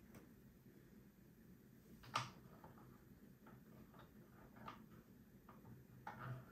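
Near silence broken by a few faint, sharp clicks and taps, the clearest about two seconds in.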